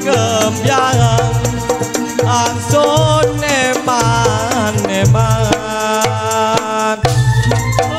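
Live campursari music through a PA: a Javanese kendang drum pattern with a repeating low beat about once a second, under a sliding, wavering melody line.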